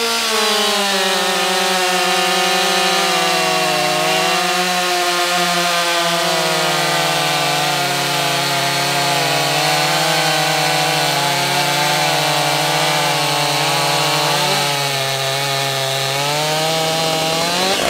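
Stihl MS 261 C-M and Husqvarna 550 XP Mark II two-stroke chainsaws cutting through a thick log at full throttle, a steady loud drone under load. The pitch shifts about three-quarters of the way through, where the Husqvarna finishes its cut, and the Stihl runs on to near the end.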